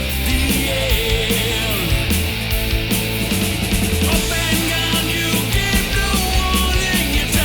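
Loud rock music with distorted guitars, steady bass and drums.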